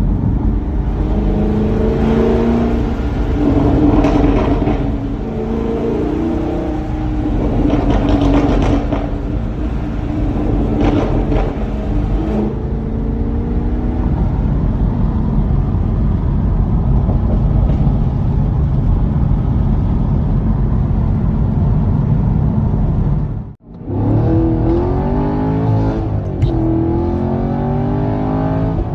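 Chevrolet Camaro SS 1LE's 6.2-litre LT1 V8 through its NPP exhaust in track mode, revving and falling off with exhaust crackles and pops in a tunnel. After a brief cut about three-quarters of the way through, the engine pulls under hard acceleration, its pitch climbing again and again as it goes up through the gears.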